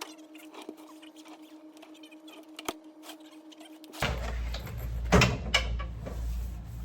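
A cardboard box being opened and its contents handled. About four seconds in there are rustling and crackling sounds, with two sharp cracks a moment later; before that there is only a faint steady hum and a few light clicks.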